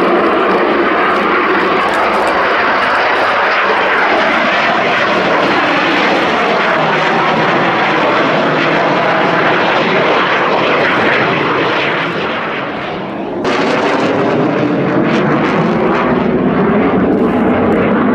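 Yakovlev Yak-130 jet trainer's twin AI-222-25 turbofan engines at high power through its takeoff run and display flight: a loud, steady jet rush with tones slowly gliding in pitch as it passes. About thirteen seconds in, the sound sags briefly, then jumps abruptly back to full level.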